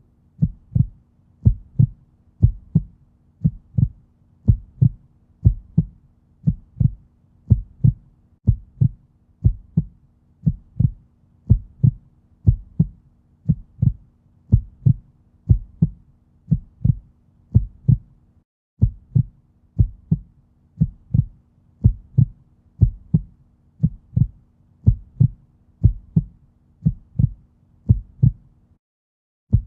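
Underwater sound effect: regular low, heartbeat-like thuds, often in pairs, over a faint steady hum. The pulsing breaks off briefly about 18 seconds in and again near the end.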